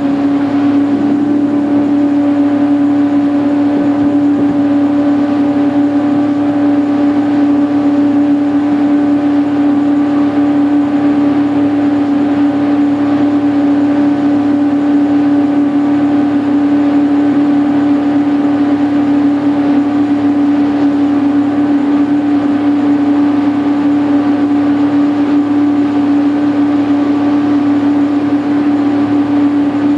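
Motorboat engine running steadily at one even pitch, heard from aboard the boat as it pulls a tube at speed.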